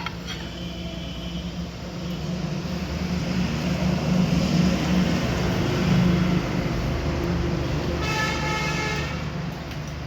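Passing road traffic: a vehicle's engine rumble swells and fades, and a vehicle horn sounds for about a second near the end.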